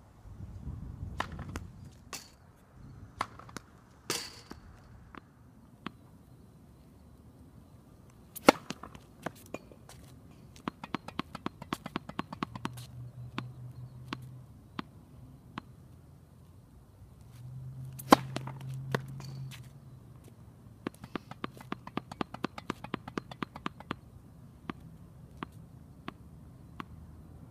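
Tennis balls struck by a racket and bouncing on a court: sharp single hits, a few much louder than the rest, and quick runs of lighter taps of about five a second.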